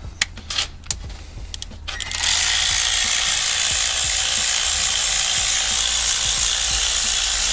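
A few light clicks of tools being handled, then about two seconds in a cordless electric ratchet starts and runs steadily for about six seconds, spinning a T40 Torx bit to undo the coil pack bolts.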